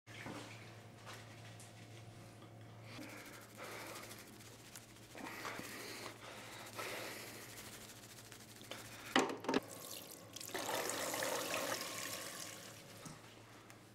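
Tap water running into a washbasin for a couple of seconds while hands are washed, preceded by two sharp clicks close together. A low steady hum sits underneath.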